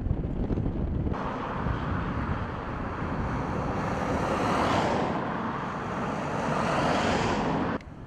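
Outdoor wind noise: a low rumble of wind on the microphone, then from about a second in a louder, steady rushing hiss that cuts off abruptly near the end.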